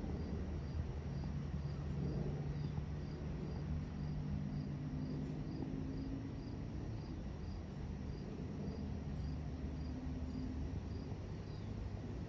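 Crickets chirping in a steady rhythm, about two to three chirps a second, over the low, steady drone of a jet airliner passing high overhead.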